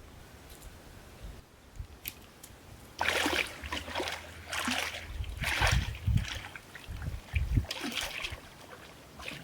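Water splashing: a run of five or six short splashes, beginning about three seconds in, with low thumps under them.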